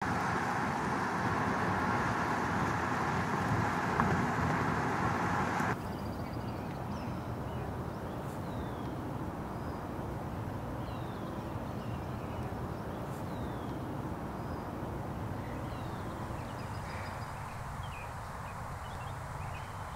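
Steady rushing noise inside a car in the rain, cutting off abruptly about six seconds in. Quieter open-air background follows, with birds chirping in short, high calls.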